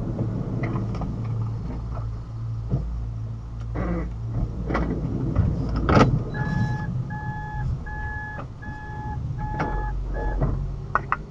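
Inside a car with a steady low hum: a sharp knock about six seconds in, then a car's electronic warning chime beeps about six times in an even rhythm and stops.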